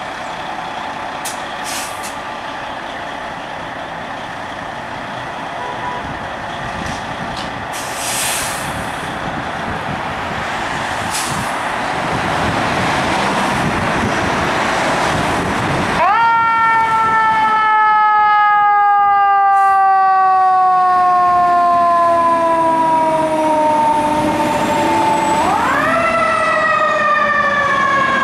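A fire engine's diesel runs louder and louder as the truck pulls away, with short hisses of air about eight and eleven seconds in. Then its siren winds up sharply and slowly winds down over several seconds, and winds up again near the end.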